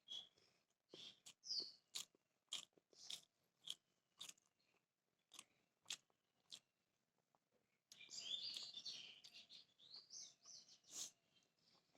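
Faint close-up eating sounds: a mouthful of beef biryani being chewed, with scattered sharp mouth clicks and a denser stretch of chewing about eight seconds in.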